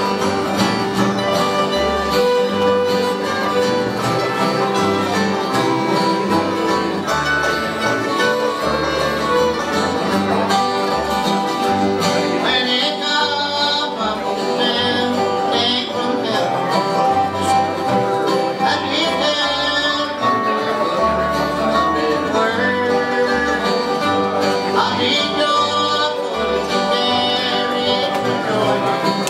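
Bluegrass band playing live: fiddle, resonator guitar (dobro), mandolin, upright bass and acoustic guitars, with the bass walking steadily underneath.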